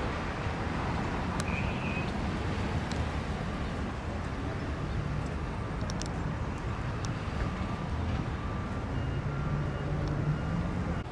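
Steady outdoor rumble of vehicle traffic and engines, with a few faint ticks and a low engine drone coming up near the end.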